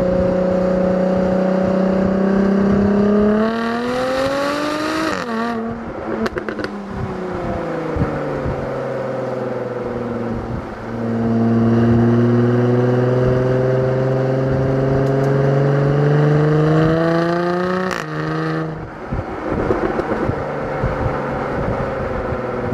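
Jaguar F-Type V6 S's supercharged V6 engine and exhaust under acceleration. The engine note rises in pitch, then cuts off sharply with a burst of pops and crackles as the throttle closes, and falls away. Later it climbs slowly again and breaks off a second time with more crackles near the end.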